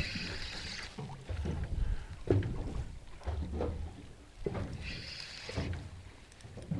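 Water slapping and sloshing against a small boat's hull, with uneven gusts of wind rumbling on the microphone and a few short knocks.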